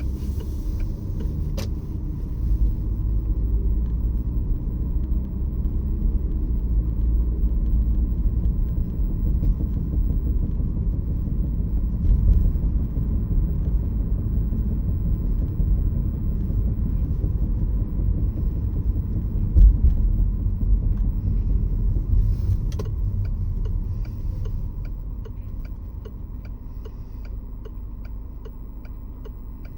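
Peugeot 508 SW on the move, heard from inside: a steady low rumble of driving noise with a few faint sharp ticks or clicks, easing off over the last few seconds. It is the abnormal noise the owner hears while driving, its cause not given.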